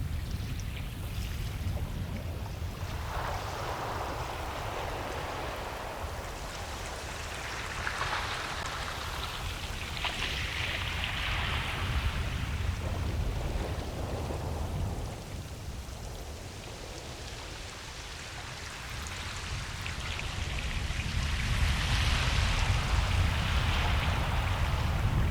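Ocean waves breaking and washing up a beach, the surf swelling and falling back several times, over a steady low rumble.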